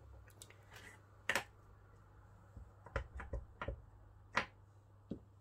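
Clear acrylic stamp block being handled and tapped onto an ink pad to ink a rubber stamp: a few sharp plastic clicks and knocks, one about a second in and a quick run of them between three and four and a half seconds.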